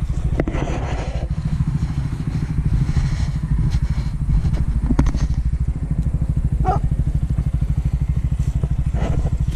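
Side-by-side utility vehicle's engine idling steadily with an even low pulse. A few brief clicks come over it.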